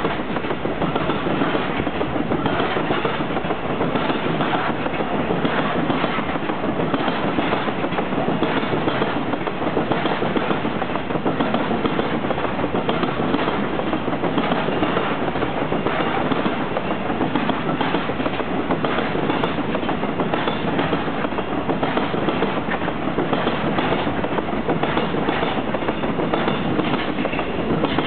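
A long freight train of container flat wagons rolling past at speed, its wheels clattering steadily over the rail joints.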